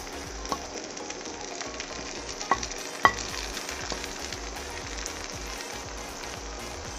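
Vegetables sizzling in a pan on an induction cooktop while ground coconut paste is spread over them with a spatula. The spatula clinks sharply against the pan three times, loudest about three seconds in.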